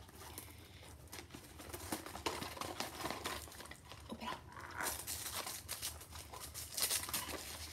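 Small cardboard gift box and its ribbon being handled and picked at to open it: irregular rustling, scraping and rubbing with light taps, in several bursts.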